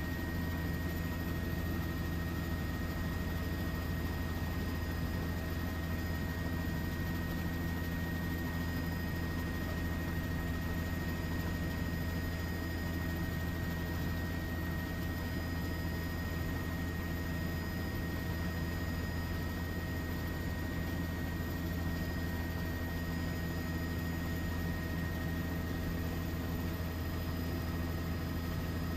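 Steady low engine drone with a constant thin high whine; no jet is heard passing.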